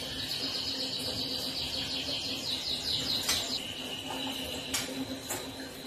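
White-rumped shama giving a continuous high-pitched trill that ripples rapidly and then settles into a steady high note. From about halfway on, a few sharp clicks come from a hand handling the bird cage.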